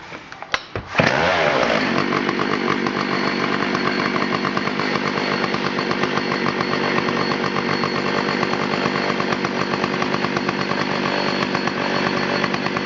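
Homelite Super XL 925 chainsaw's 82cc two-stroke engine starting up about a second in, after a few clicks, and then running steadily.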